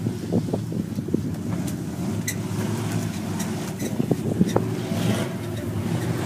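Dirt-track stock cars' engines running around the oval, a steady drone with a few sharp clicks mixed in.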